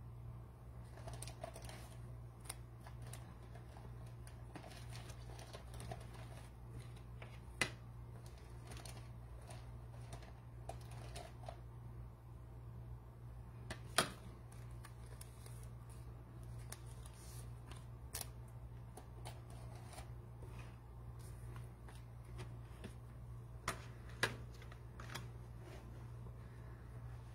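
Steady low electrical hum with scattered light clicks and taps, a few of them sharper and louder.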